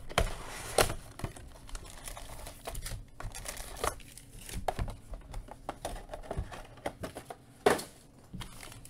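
A Panini Phoenix football card box being opened and its foil-wrapped packs handled: crinkling and rustling wrappers with scattered knocks of cardboard on the table, and a sharp knock near the end.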